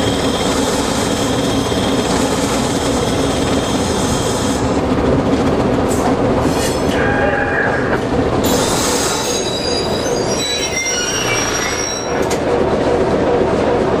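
Baldwin DS-4-4-1000 diesel switcher locomotive running steadily while pulling a long train of tank cars, with high-pitched wheel squeal from the train. The squeal holds for the first few seconds and stops suddenly, then returns as shorter squeals with shifting pitch.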